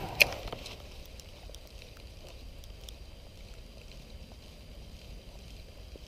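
A single sharp click just after the start as a spinning reel is handled, followed by a faint steady wash with light scattered ticks.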